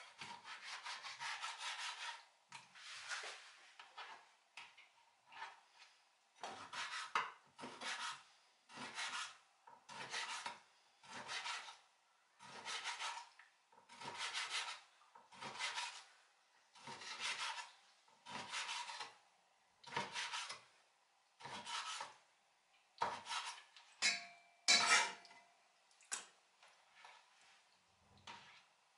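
Chinese cleaver slicing raw pork liver on a cutting board: drawn, rasping strokes about one a second as the blade cuts through the liver and scrapes the board. There is a brief metallic ring near the end.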